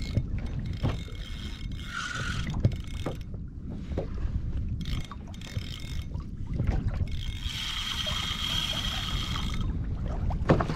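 Spinning fishing reel being worked against a hooked fish, its gears and mechanism clicking and whirring, with a steady high whine for about two seconds in the second half, over low wind rumble on the microphone.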